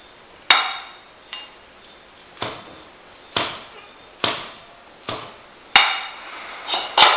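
A series of sharp metallic knocks, about eight at uneven spacing, each ringing briefly, from the metal parts of a motorcycle front fork being knocked while the fork is drained of its oil.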